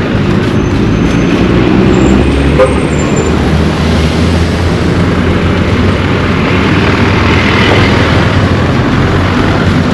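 Road traffic: a motor vehicle's engine runs close by, with a steady low hum, and a rushing traffic noise swells about seven to eight seconds in.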